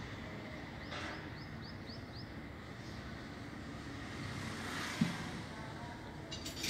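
Steady outdoor background noise, with a small bird chirping six quick high notes about a second in and a single dull thump about five seconds in.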